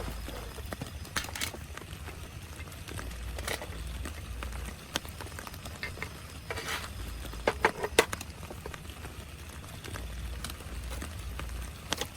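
Steady rain with a low rumble underneath, and a scatter of short knocks and clatters; the loudest cluster comes about eight seconds in.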